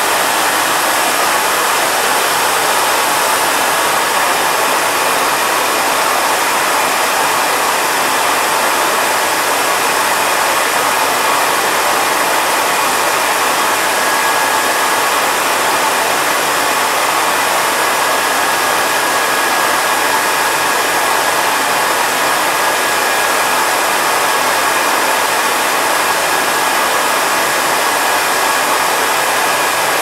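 Nilfisk GM80 canister vacuum cleaner running steadily with its floor nozzle resting on carpet: an even, loud rushing of motor and airflow, measured at about 80 decibels. A faint steady whine comes in about halfway through.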